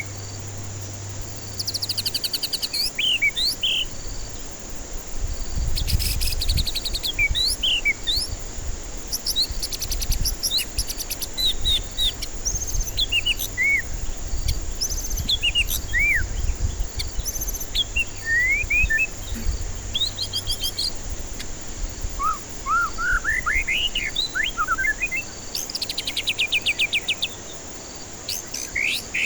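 White-rumped shama (murai batu) singing: a continuous run of varied clear whistles that slide up and down, broken by fast rattling trills, with a quick series of rising notes near the end. A low rumble sits underneath through the middle.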